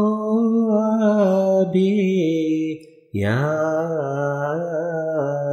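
A ginan, an Ismaili devotional hymn, being sung: one voice draws out long, slowly bending notes, with a short break about three seconds in.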